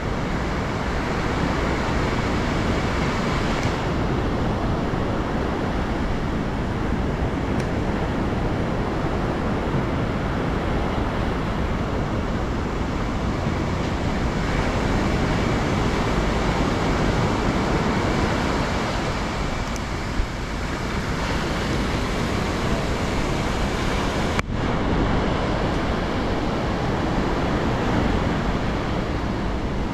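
Steady wash of ocean surf with wind rumbling on the microphone, broken by a brief dropout about three-quarters of the way through.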